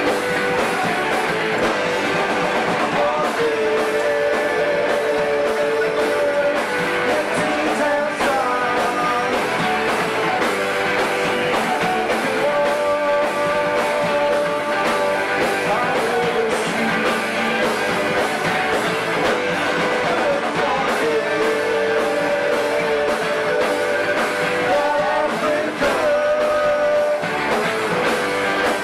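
A live rock band plays a song: electric guitars and bass guitar through amplifiers, with a sung vocal line over them. The playing is loud and continuous.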